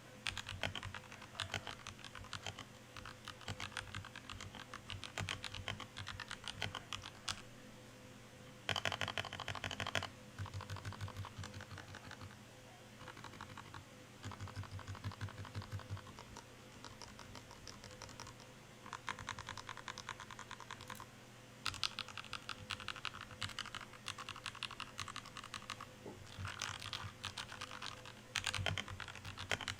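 Typing on a Royal Kludge RK61 60% mechanical keyboard with lubed switches and band-aid-modded, lubed stabilizers: quick runs of key clacks lasting a few seconds each, separated by short pauses.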